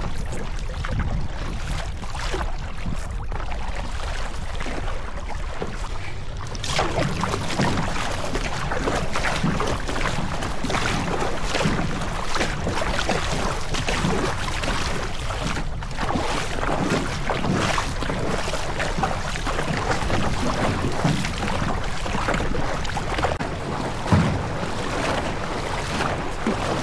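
Water splashing and lapping around a stand-up paddleboard, with wind buffeting the microphone; the water noise gets busier about six seconds in.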